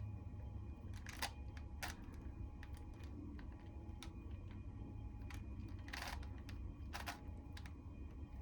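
Plastic clicks and clacks of a Rubik's Cube being turned by hand, a handful of separate sharp clicks spread out, over a low steady hum.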